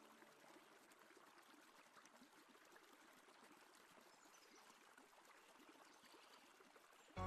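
Near silence: a faint trickling water sound with small ticks over a soft hiss, from a partly frozen lake. Music cuts back in abruptly at the very end.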